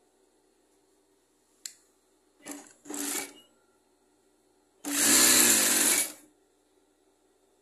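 Yamata industrial sewing machine stitching viscose fabric in short runs: a sharp click, two brief bursts, then a longer run of about a second and a half as the motor speeds up and slows down.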